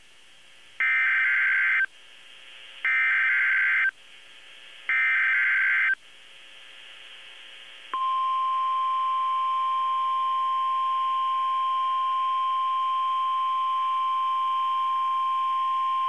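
NOAA Weather Radio emergency alert tones: three one-second bursts of screeching SAME digital header data about a second apart, coded for a Hurricane Warning (HUW). About eight seconds in, the steady 1050 Hz weather radio warning alarm tone starts and holds. Faint radio hiss lies under the gaps.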